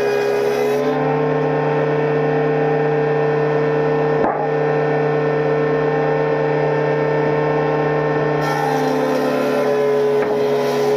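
A woodworking machine's motor running steadily with a humming tone, stepping slightly up in pitch about a second in and back down near the end, with a single sharp click about four seconds in.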